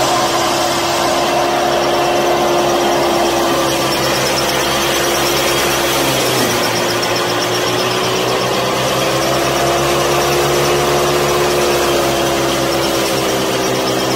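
Miniature belt-driven wheat thresher running steadily, its small motor and drum humming as it blows out straw and chaff. The pitch dips slightly about six seconds in, then wavers up and down.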